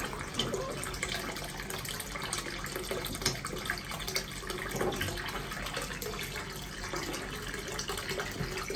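Water running from a wall pipe into a filled inflatable pool, a steady splashing pour, with small scattered splashes as a baby monkey paddles through the water.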